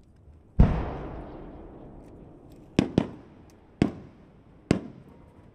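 Large aerial firework shells (shakudama) bursting: one deep boom about half a second in, the loudest, with a long rolling echo dying away over the next two seconds, then several sharp bangs of further shells, two in quick succession.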